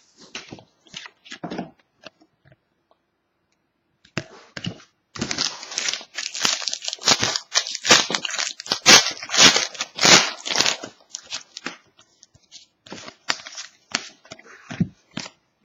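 A Panini Certified hockey card pack wrapper being torn open and crumpled: scattered light rustles and clicks, then several seconds of dense crinkling, then sparser handling clicks near the end.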